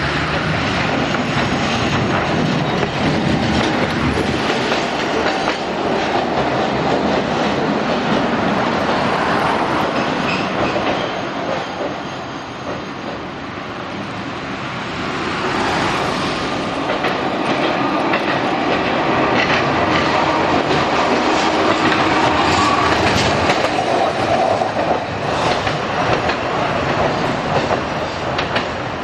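Okayama Electric Tramway 7500-series tram running, its nose-suspended traction motors and gears giving the typical tsurikake whine. The whine rises in pitch as the tram picks up speed, with a quieter spell about halfway through before it climbs again.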